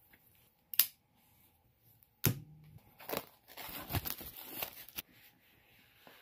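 Plastic shrink wrap being torn and peeled off a 4K Blu-ray box set. There are two sharp snaps, then about two seconds of crinkling and tearing plastic.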